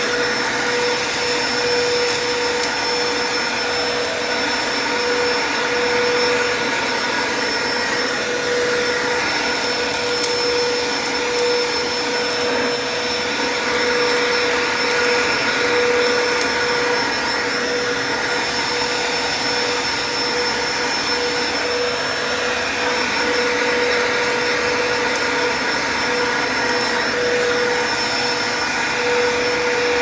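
Oreck XL upright vacuum cleaner running steadily while pushed back and forth over carpet: a constant motor whine over the rush of air, swelling and easing slightly with the strokes.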